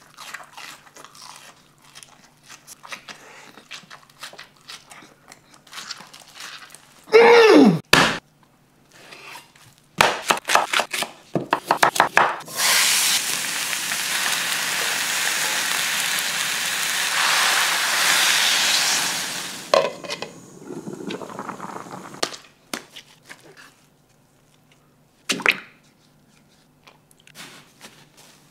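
Eating and kitchen sounds: crunchy bites of panko-fried salmon cutlet with a voiced exclamation that glides down in pitch about seven seconds in, then clicks and knocks of leek pieces going into a steel pan, followed by a steady rushing hiss lasting about seven seconds. Near the end come soft crackles of panko breadcrumbs being pressed onto meat by hand.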